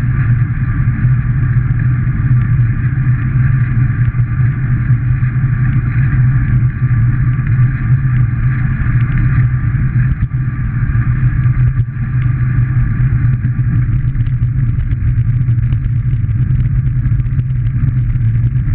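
Steady rumble of wind and tyre noise on a camera riding along on a moving road bicycle.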